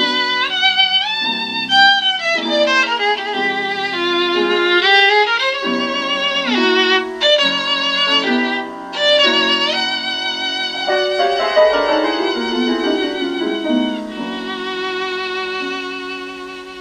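Recorded violin music with vibrato and sliding notes over a lower accompaniment, played back through a 6BM8 single-ended tube amplifier and a bare Isophon oval loudspeaker. It softens toward the end.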